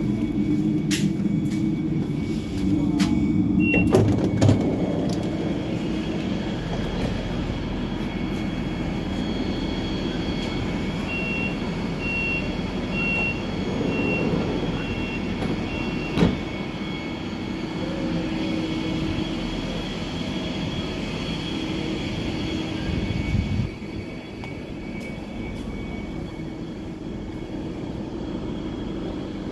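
Door warning beeps of a DB class 425 S-Bahn train: six short high beeps about a second apart over the train's steady hum, followed by a sharp knock.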